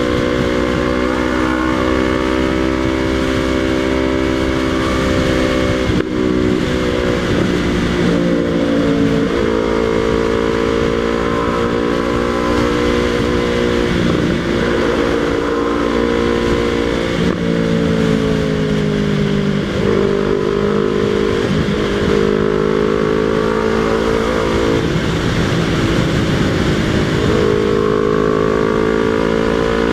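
Yamaha MT-03's parallel-twin engine running loud through a Jeskap aftermarket exhaust with its dB killer removed, ridden along. Its pitch rises and falls several times with throttle and gear changes.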